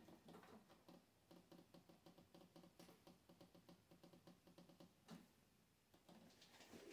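Near silence, with faint rapid ticking, about four ticks a second, that stops about five seconds in.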